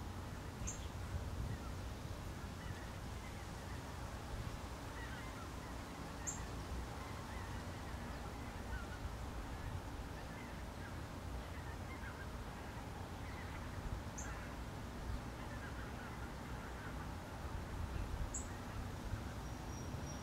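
Steady rain hiss over a low rumble, with faint, scattered bird calls and a few brief high chirps.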